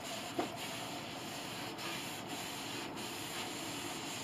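Cloth pad rubbing back and forth over the wooden piano soundboard, a steady scratchy swishing with brief breaks between strokes, as a thin shellac wash coat is wiped on. A small click sounds about half a second in.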